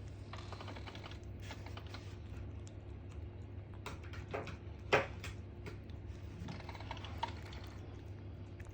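Ragamuffin kitten eating food from its dish: four bursts of rapid, wet clicking from its chewing and licking, with one sharper click about five seconds in.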